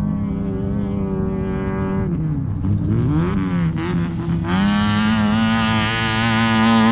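Off-road race vehicle's engine running hard. Its pitch drops steeply about two seconds in as the throttle lifts, climbs back up, and from about four and a half seconds in it runs louder and higher.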